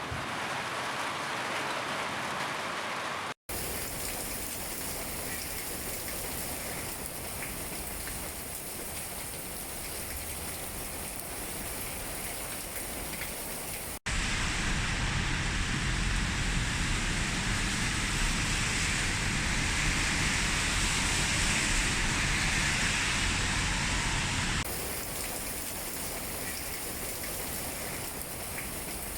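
Steady rain falling, joined from several recordings. There is a split-second dropout about three seconds in, and a louder, heavier downpour for about ten seconds from about halfway through before it drops back to lighter rain.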